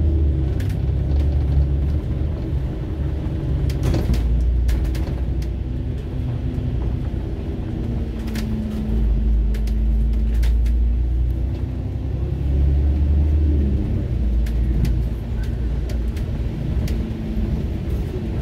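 Double-decker bus ride heard from the upper deck: a steady low engine rumble whose drone shifts in pitch as the bus speeds up and slows, with a few sharp rattles or clicks from the body scattered through.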